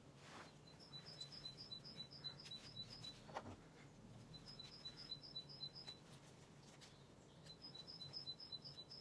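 A small bird chirping faintly in three quick runs of high, evenly spaced notes, about four a second, with short pauses between runs. Soft handling noise is heard once near the start and again about three and a half seconds in.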